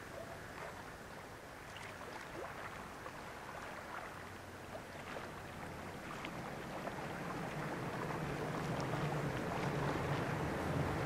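Low engine drone that starts about halfway through and grows steadily louder, over a soft outdoor hiss with faint small ticks.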